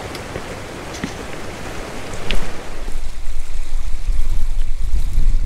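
Creek water rushing over rocks, with a couple of sharp clicks. About three seconds in, wind buffeting the microphone takes over as a loud, gusting low rumble.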